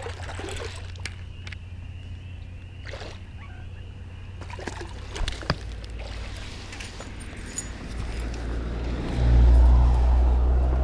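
Landing a bass from the bank: scattered small clicks and faint water sounds as the fish is reeled to the edge, then a loud low rumble of handling noise on the microphone near the end as the fish is lifted out and gripped.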